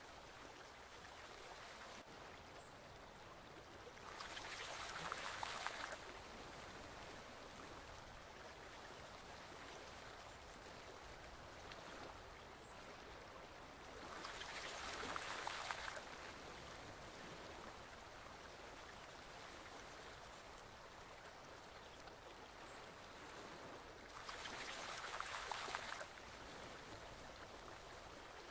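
Forest stream water flowing steadily. Three times, about ten seconds apart, the water swells for about two seconds into a louder rush.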